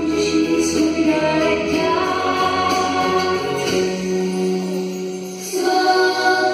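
Music with several voices singing together over instrumental backing. Near the middle the sound thins to a held low note for about two seconds, then the full music returns.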